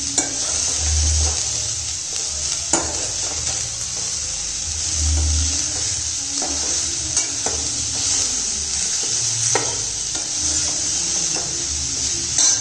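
Chopped baby bitter gourd sizzling in oil in a stainless steel pan as a metal ladle stirs and scrapes it. There are occasional sharp clinks of the ladle against the pan over the steady sizzle.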